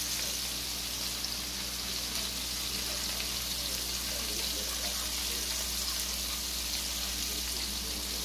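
Battered squirrel pieces shallow-frying in hot oil in a skillet: a steady sizzle with fine crackling, over a faint low hum.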